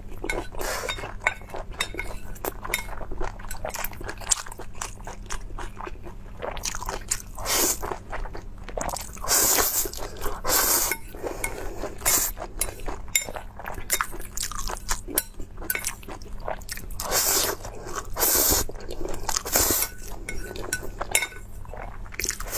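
Close-miked eating of fried noodles: several long slurps about a second each, wet chewing, and chopsticks clicking against a ceramic plate.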